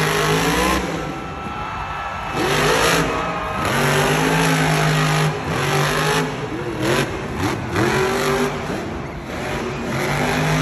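Grave Digger monster truck's supercharged V8 revving hard in repeated surges, the pitch swooping up and falling back, as the truck is held up on its wheels in a wheelie.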